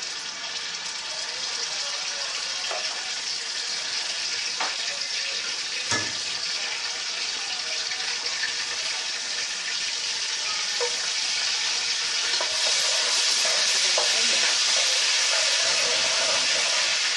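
Ginger-garlic paste sizzling as it fries in hot oil with whole spices in a wok, stirred with a metal spatula that knocks against the pan a few times. The sizzle gets louder about two-thirds of the way through.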